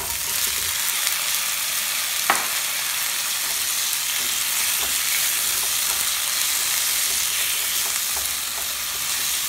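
Tomato wedges sizzling in hot oil in a frying pan, a steady hiss that starts as they go in, while they are stirred with a spatula. One sharp tap about two seconds in.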